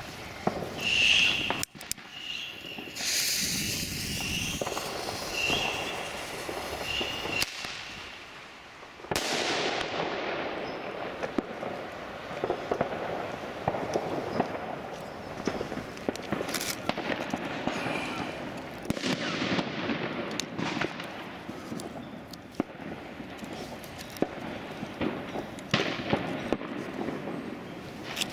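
Katan Thunderking firework going off on the ground: a few seconds of fizzing with short high whistles, then, about nine seconds in, a long dense run of crackling and popping with scattered louder cracks.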